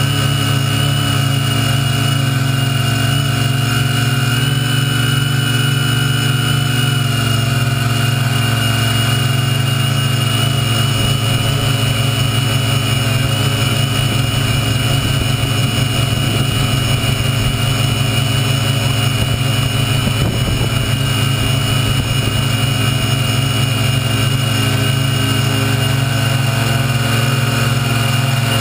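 Quadcopter's four 1250 kV brushless motors driving 9x5 Graupner propellers in flight, a loud steady hum with a high whine above it, heard from right on the frame.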